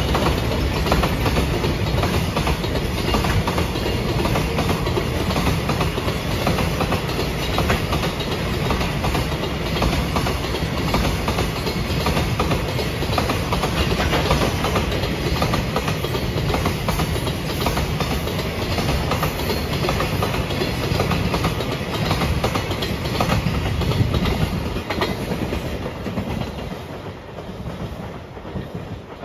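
A JR Freight container train's wagons rolling past, the wheels clicking over the rail joints. The sound is steady, then fades away over the last few seconds as the end of the train goes by.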